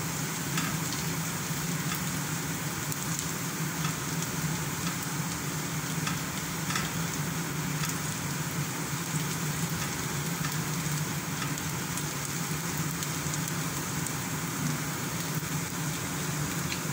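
Chopped onion and garlic sizzling in oil in a stainless steel frying pan as they are sautéed toward brown, stirred now and then with a silicone spatula. A steady low hum runs underneath.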